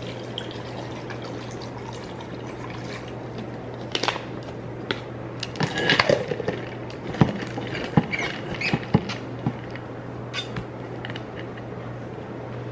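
Scattered light clicks, knocks and taps of a tumbler, a plastic water bottle and a phone being handled and set down on a hard kitchen countertop, mostly in the middle of the stretch, over a steady low hum.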